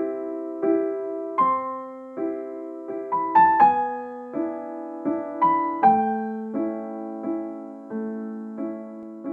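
Piano music: chords struck about every two-thirds of a second, each ringing and fading away, with a few quicker notes in the middle.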